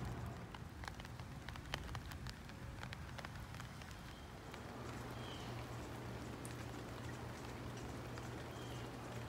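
Steady rain falling on wet muddy ground and garden soil, with individual drops spattering close by, most densely in the first few seconds. A low steady hum runs underneath.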